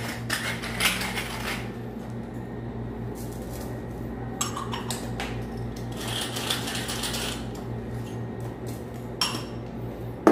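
Scattered clinks and handling noises of kitchen items on a table, over a steady low hum.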